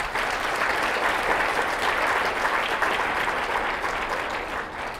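Audience applauding: a dense patter of many hands clapping that starts suddenly and slowly dies down toward the end.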